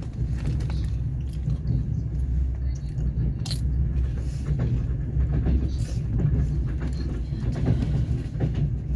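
Passenger train running, heard from inside the carriage: a steady low rumble of the wheels on the rails, with scattered light clicks and one sharper click about three and a half seconds in.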